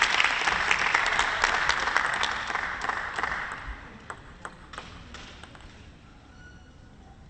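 Crowd applause in a sports hall after a table tennis point, with scattered sharp claps, dying away over about four seconds to a quiet hall with only a few stray claps.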